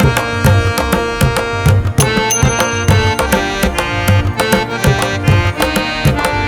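Background music with a steady, rhythmic drum beat and pitched melodic instruments.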